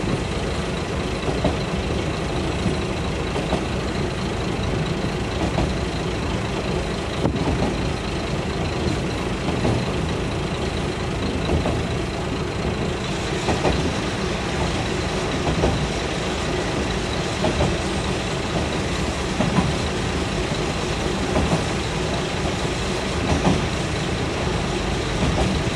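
Kashima Rinkai Railway 6000 series diesel railcar under way, heard from inside the passenger cabin: steady engine and wheel-on-rail rumble with light knocks now and then, the hiss growing brighter about halfway through.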